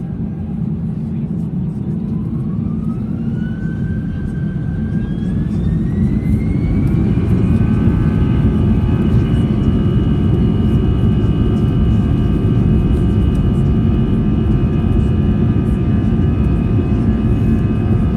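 Airbus A320 jet engines spooling up to takeoff thrust, heard inside the passenger cabin: a whine climbs in pitch over several seconds and gets louder, then holds as steady tones over a heavy rumble.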